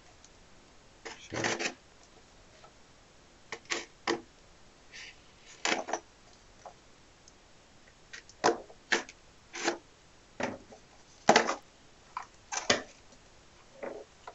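Packing tape and plastic wrap on a foam-packed parcel being slit with a knife and pulled open, in about a dozen short, irregular scraping and rustling strokes.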